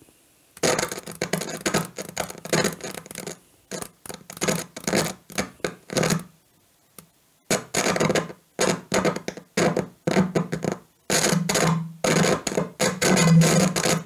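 Lawo V976/18 microphone preamplifier's output crackling and spitting with a low hum, cutting in and out in irregular bursts. This is the sign of an intermittent fault that comes each time the switch shaft is touched.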